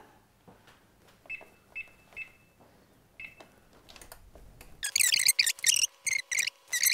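Four short high beeps from a Thermomix's controls as it is set to toast spices for two minutes. About five seconds in, louder music with a steady beat starts.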